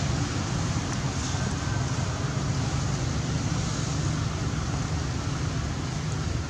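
Steady outdoor background rumble and hiss, heaviest in the low end, with no distinct events.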